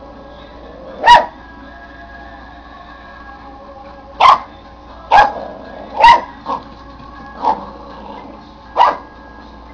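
A young Papillon puppy barking: seven short, high barks, spaced irregularly, two of them close together about six seconds in.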